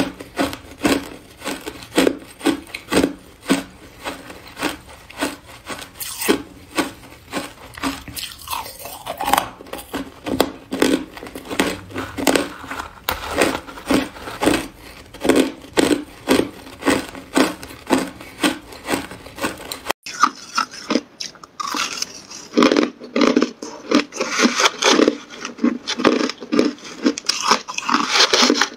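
Hard, clear ice being bitten and chewed, close to the microphone: a steady run of sharp crunches, about two a second. About two-thirds of the way through, the crunching turns denser and more grinding.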